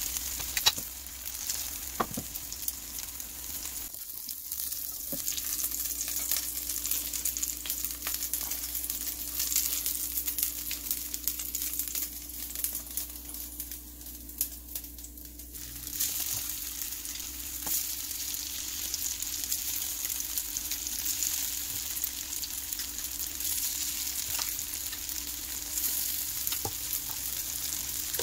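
Tofu-and-ground-beef patties sizzling and crackling in hot oil in a nonstick frying pan, with a few sharp clicks of a spatula against the pan. The sizzle drops lower for a stretch in the middle and comes back stronger near the end.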